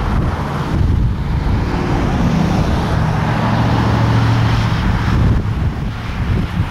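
A vehicle engine running, with wind rumbling on the microphone.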